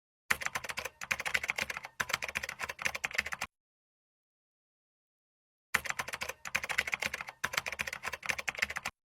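Computer keyboard typing: rapid clicking in two runs of about three seconds each, with dead silence between them.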